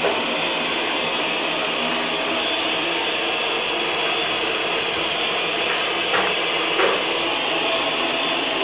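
Steady whooshing noise, like a running motor, with two light clicks a little past the middle.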